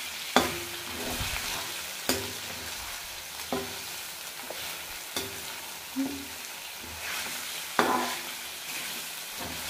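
Chicken pieces frying and sizzling in oil in a metal pan while a metal spoon stirs them, clinking and scraping against the pan every second or two.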